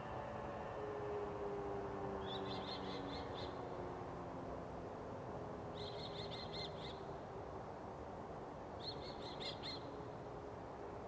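Distant motor sirens winding down, their tones slowly falling in pitch and fading. A songbird sings three short, rapid trills of high chirps over them.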